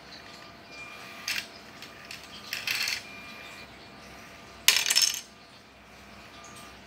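Plastic Lego robot mechanism clacking as it moves, then a Lego brick clattering down onto the table about five seconds in, the loudest sound.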